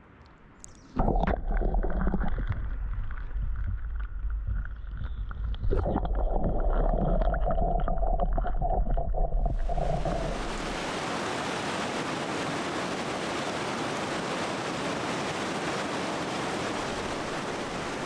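Water heard through a camera held in a mountain lake and creek: muffled underwater sloshing with a low rumble from about a second in. About ten seconds in it gives way to the steady rush of fast-flowing creek water.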